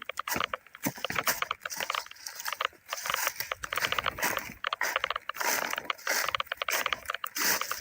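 Footsteps crunching and rustling through dry leaves and brush: a rapid, irregular crackle that never stops.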